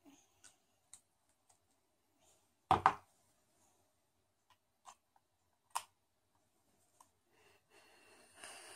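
Small clicks and taps from handling a dropper bottle and a box-mod vape's dripping atomizer, with one louder double knock about three seconds in. Near the end, a steady hiss as the micro coil fires and a draw is pulled through the atomizer.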